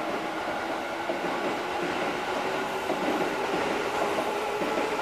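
Kintetsu limited express electric train running past through the station: steady running noise of wheels on rails, with an even electric whine over it.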